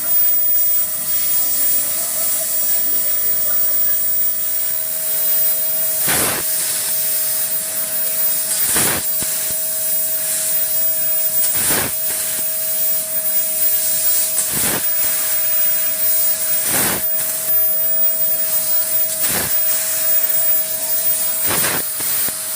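3 kW fiber laser cutting machine cutting 2 mm sheet metal: a steady hiss with a constant hum tone, broken by short bursts of noise about every two to three seconds, seven in all.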